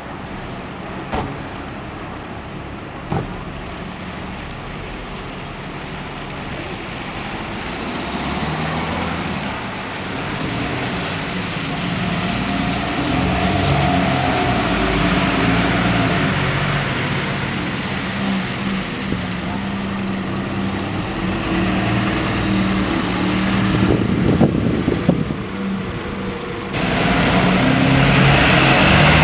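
A heavy diesel vehicle's engine running, growing louder about eight seconds in, with a brief whine in the middle. A couple of sharp clicks come early, and a sudden louder surge comes near the end.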